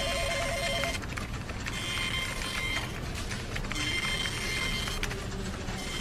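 Office ambience: a telephone's warbling electronic ring stops about a second in, over a printer running in repeated passes and a steady background of office clatter.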